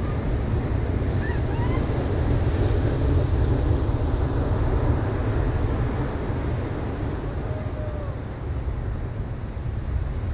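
Ocean surf breaking on a sandy beach: a steady wash of waves that swells a few seconds in, over a heavy low rumble of wind on the microphone.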